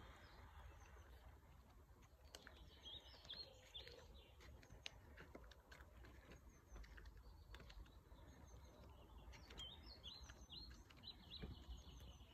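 Faint small-bird chirping in two short bursts, a few seconds in and again near the end, over a low rumble, with scattered small clicks.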